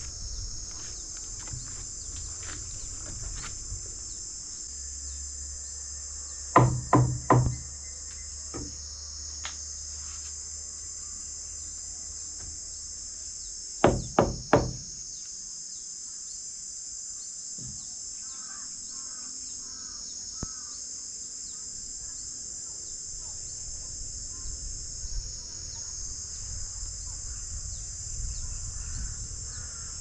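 Three quick, sharp knocks on a roof, then about seven seconds later three more, which the presenter takes for a spirit knocking in answer to his request. Crickets chirp steadily underneath.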